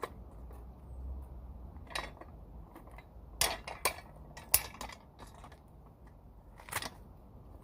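Metal parts clicking and knocking as something is worked into place by hand: a few separate sharp clanks, the loudest about three and a half to four and a half seconds in, and another near seven seconds.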